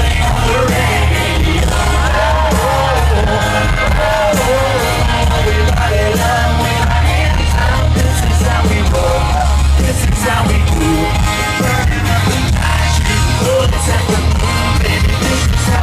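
Live country band playing loud and continuously, with a heavy, steady bass and singing voices over it, along with yells from the audience.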